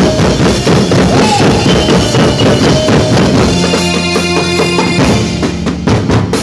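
Music with a steady drum beat: bass drum and snare strikes under held tones, the strikes growing sharper near the end.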